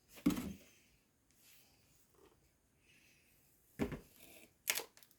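A few knocks and clatters of a plastic-bodied chainsaw being handled or set down: one knock about a quarter second in, then two more near the end.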